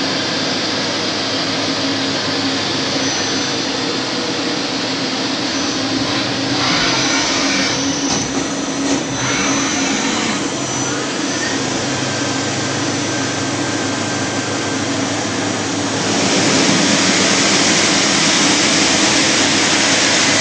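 Taiwanese FTC30 CNC lathe running, a steady mechanical hum under a broad hiss. The hiss grows brighter for a few seconds about a third of the way in, then steps up louder about three-quarters of the way through.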